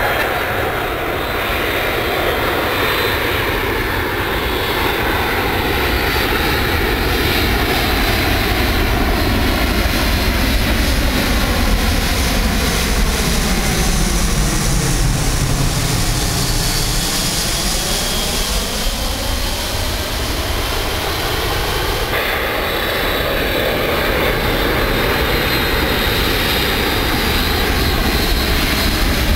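Boeing C-17 Globemaster III's four turbofan jet engines on landing approach, a loud steady jet rumble as the aircraft flies low overhead. The tone sweeps down and back up as it passes, about halfway through.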